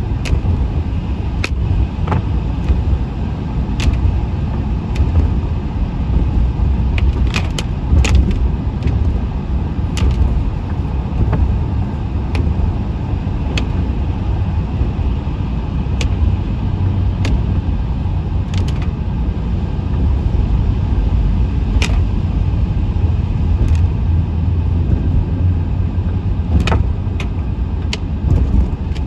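A vehicle driving with a steady low road-and-engine rumble, and sharp ticks scattered irregularly throughout.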